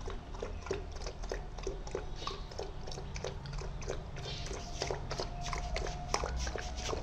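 Puppy lapping water from a plastic tub: a steady run of quick, wet laps, about four or five a second.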